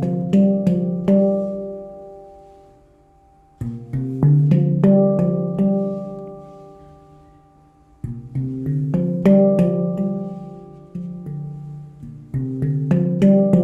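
A 14-note D Low Kurd handpan in Ember Steel, played in quick arpeggios of struck notes that ring on and fade away. The runs reach down to the deep bottom-side notes, and a new phrase starts about every four seconds.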